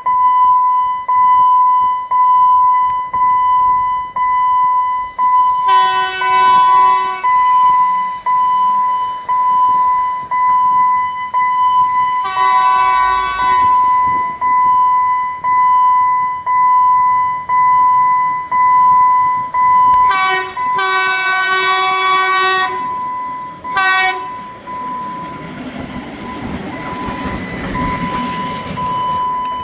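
Diesel passenger train sounding its horn in five blasts (long, long, short, long, short) while a level-crossing warning signal beeps about once a second. From about 25 seconds in, the train's rumble takes over as it passes.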